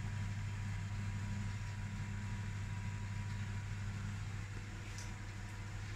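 Air fryer running partway through its cooking cycle: a steady low hum from its fan.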